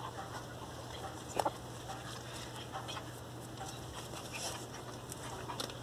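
Two pinscher puppies play-fighting: faint scuffling, with one short yip about a second and a half in.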